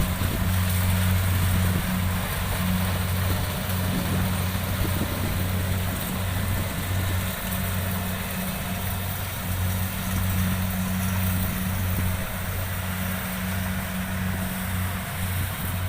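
Diesel engines of DC70 combine harvesters running steadily in the field, a constant low engine hum that swells and eases slightly.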